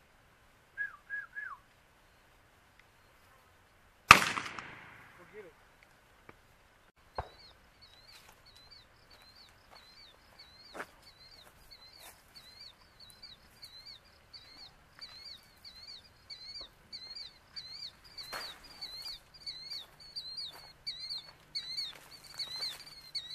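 A single shotgun shot about four seconds in, echoing away over a second or so. A few short falling chirps come before it, and after it a high chirp repeats steadily about three times a second.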